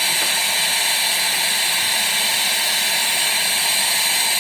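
Steady, loud, high-pitched hiss that holds unchanged throughout.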